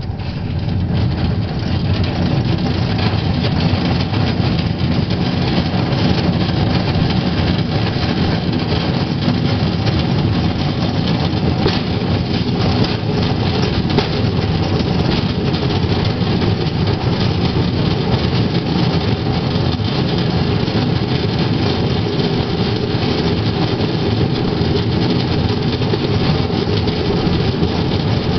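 Pedal-powered rail bike rolling along the rails, its wheels making a steady, loud rumble that swells as it gets moving at the start.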